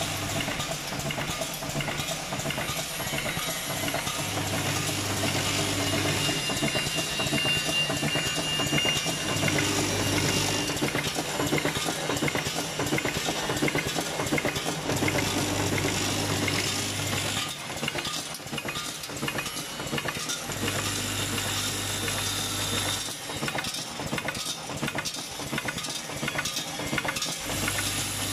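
Automatic screw packing machine running: a continuous metallic clatter of screws rattling in the vibratory bowl feeder and feed track, with a low hum that cuts in and out every few seconds.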